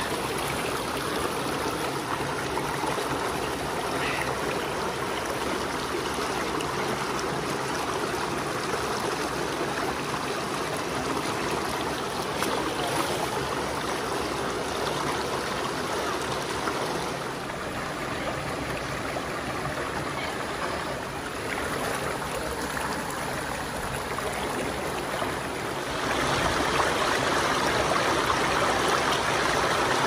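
Mountain stream rushing over rocks, a steady wash of running water; it drops back a little past the middle and grows louder near the end.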